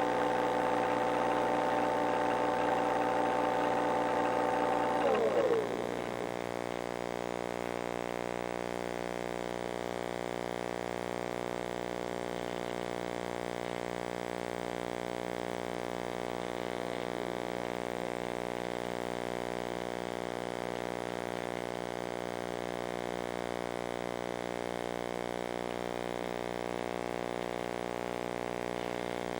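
Model airplane motor running steadily, then throttled back about five and a half seconds in, its pitch falling away. A quieter steady hum with several fixed tones carries on after that.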